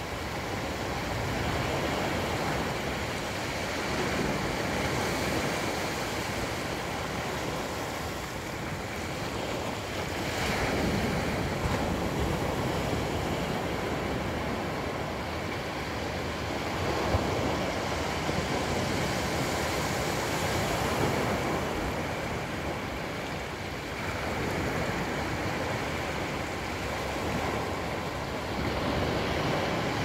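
Small ocean waves breaking and washing up a sandy beach: a continuous surf hiss that swells and eases every few seconds.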